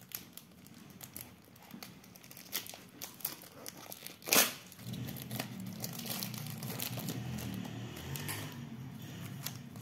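Plastic handling noise from a GAN 356M speed cube and its packaging: crinkling and many light plastic clicks, with one louder plastic clack about four and a half seconds in. From about five seconds the cube is turned in the hands, giving a steadier soft clatter.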